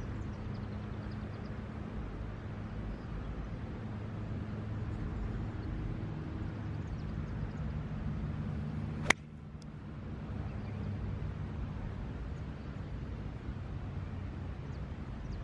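A single sharp crack of an iron striking a teed golf ball about nine seconds in, over a steady low hum.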